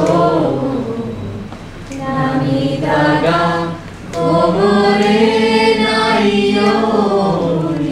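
A choir singing in sustained phrases, with brief dips between them; the longest held phrase starts about four seconds in.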